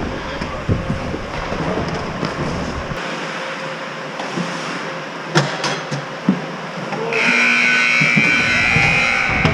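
Ice-rink game horn sounding a loud steady tone for about two seconds near the end, marking the end of the game. Before it, skates scraping and a few sharp stick and puck clacks.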